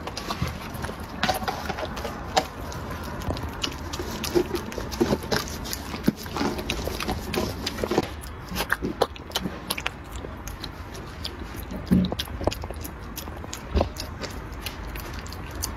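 A puppy eating wet food from a bowl, chewing with frequent irregular wet smacks and clicks.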